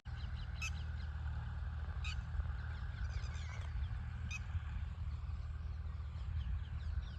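Birds chirping repeatedly, with a few sharper short calls, over a steady low rumble.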